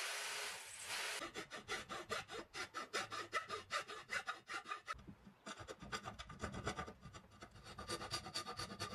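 A Black & Decker CurveControl jigsaw runs briefly and stops about a second in. It is followed by a hand file scraping back and forth in a slot cut through a wooden board, in quick repeated strokes with a short pause about halfway.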